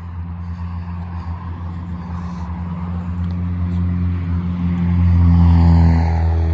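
Road traffic: a motor vehicle's engine running steadily as it passes, getting louder and loudest about five seconds in.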